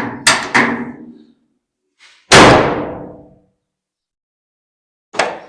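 A few light metal knocks, then about two seconds in a single loud slam of the 1955 Chevy Cameo pickup's steel door shutting, ringing briefly as it dies away: a test of the latch after the door mechanism was bent clear of the new handle.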